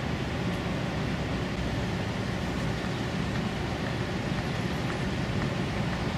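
Steady low rumble of the container ship Adrian Maersk passing close by, with no breaks or sudden sounds.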